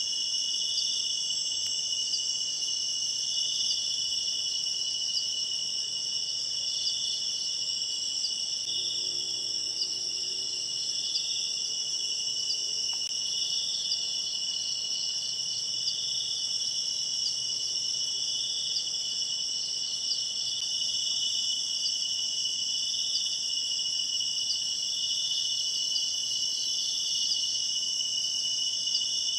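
Continuous high-pitched chorus of crickets and other insects, with one voice pulsing slowly. A faint low hum comes in about nine seconds in and fades about ten seconds later.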